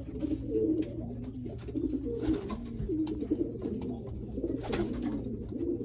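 Several racing pigeons cooing at once, low wavering coos overlapping without pause, with a few brief knocks.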